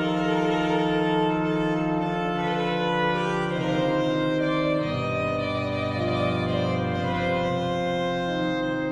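French classical pipe-organ music from a Hauptwerk virtual organ sampled from the historic organ at Saint-Michel-en-Thiérache: a slow solo melody in held notes over a soft sustained accompaniment, the notes changing about once a second.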